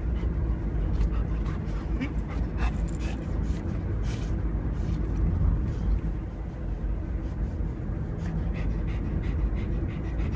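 Golden retriever panting with its mouth open, over the steady low rumble of a car's cabin.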